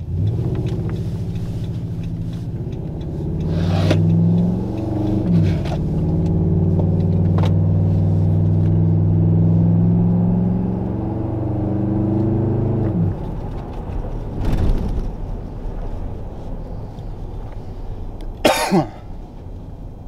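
Ram 1500's 5.7 Hemi V8, with cold air intake and Flowmaster exhaust, accelerating hard, heard inside the cab. The pitch climbs, drops sharply about five seconds in and again about thirteen seconds in as it shifts up, then the engine settles to a quieter steady cruise.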